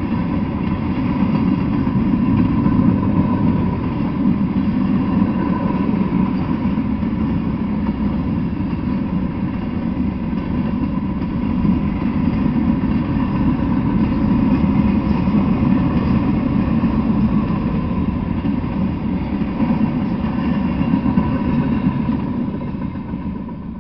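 Freight train of tank cars and covered hopper cars rolling past, a steady loud rumble of steel wheels on the rails that fades near the end as the last cars go by.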